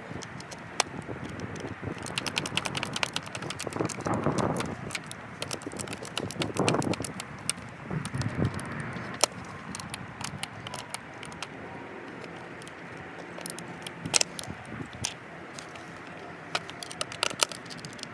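Skate tool and truck hardware being worked by hand: irregular light metallic clicks and clinks as the tool's socket meets the axle nut and truck, with a few duller handling bumps about four, seven and eight seconds in.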